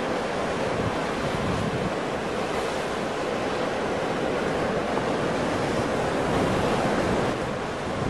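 Ocean surf: waves breaking and washing in a continuous, steady rush, with no single crash standing out.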